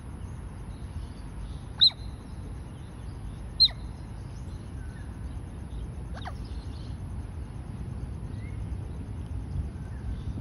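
Asian small-clawed otter calling while swimming: sharp, high chirps that drop steeply in pitch, two loud ones about two and three and a half seconds in and a fainter one near six seconds. These are contact calls to the rest of its family group.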